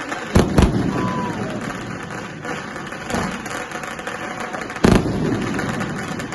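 Fireworks bursting overhead: two sharp bangs close together about half a second in, weaker booms in the middle, and a loud single bang near five seconds, each followed by a rumbling echo.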